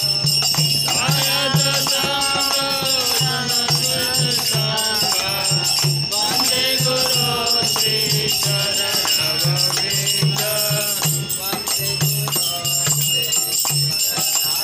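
Devotional kirtan: men singing a chant to the low, steady beat of a mridanga drum, with brass kartal hand cymbals ringing and jingling throughout.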